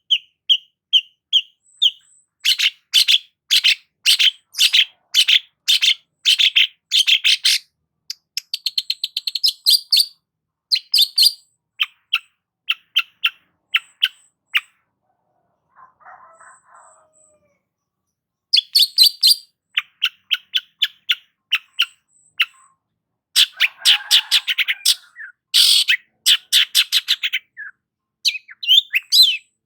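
Long-tailed shrike (cendet) singing loudly: fast runs of sharp, repeated chattering notes in bursts, with a pause of a few seconds near the middle.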